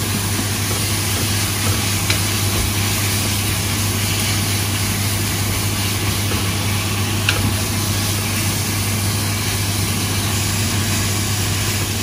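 Thinly sliced beef sizzling as it is stir-fried with onion and garlic in a non-stick pan on an induction hob, over a steady low hum, with a few light clicks of chopsticks against the pan.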